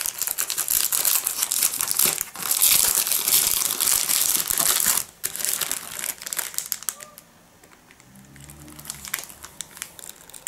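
Plastic film wrapper of a Milka Tender cake pack crinkling as it is handled and turned over. The crackling is loud for about the first five seconds, comes back briefly, then fades to a few faint rustles after about seven seconds.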